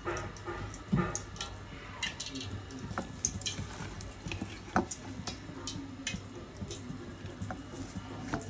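Fingers working pieces of steamed egg through thick, wet batter in a steel bowl: soft squelches with scattered clicks as fingers and egg touch the metal, and one louder knock about a second in.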